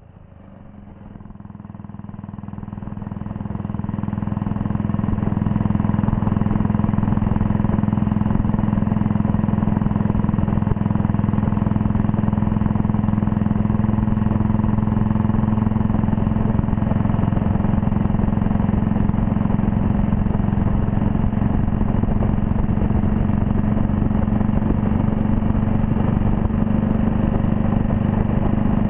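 1939 Red Panther Model 40 single-cylinder motorcycle engine running steadily under way, fading in over the first few seconds and then holding an even pitch.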